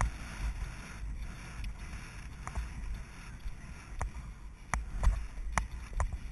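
Horse galloping cross-country, heard from a camera on the rider: wind rumbling on the microphone with irregular knocks of hooves and tack. The horse jumps a log fence about four seconds in, and the loudest knock comes about a second later.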